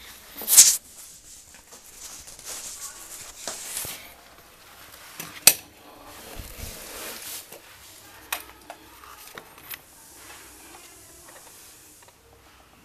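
Handling noise: a sharp click near the start and another about five and a half seconds in, with bouts of rustling between them and a few smaller clicks later.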